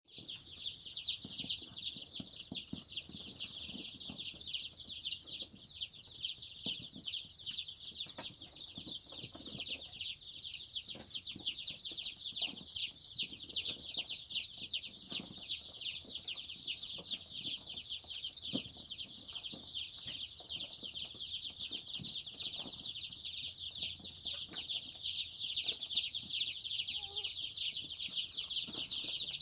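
A crowd of day-old joper (Jawa Super) kampung-cross chicks peeping without pause, their many high cheeps overlapping into a dense chorus, with faint rustles and light knocks underneath.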